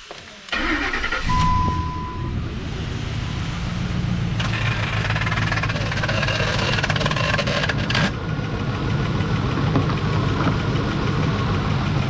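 Lincoln MKT's V6 engine cranked and started about half a second in, then idling steadily. A single electronic chime sounds for about a second just after it catches, and a rushing noise rides over the idle for a few seconds in the middle.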